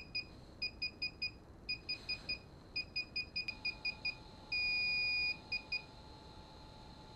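DJI Phantom 4 remote controller beeping as its firmware upgrade begins. Short high-pitched beeps come in groups of four about once a second, then in a quicker run, then one long steady beep about five seconds in, followed by two short beeps.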